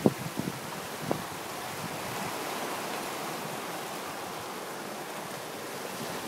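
Sea surf washing steadily onto the shore, with wind buffeting the microphone. A few short knocks sound in the first second or so.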